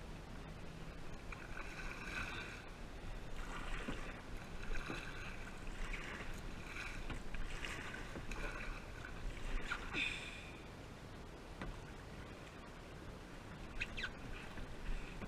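Kayak paddle strokes splashing in the water, roughly one a second, easing off about two-thirds of the way through.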